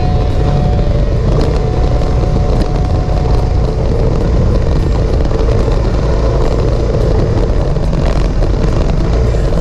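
Motorcycle riding along a gravel road: a steady loud rumble of engine and rushing air, with small clicks and crackles of stones under the tyres.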